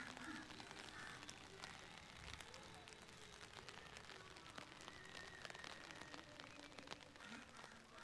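Faint light rain: scattered raindrop ticks over a soft, steady hiss.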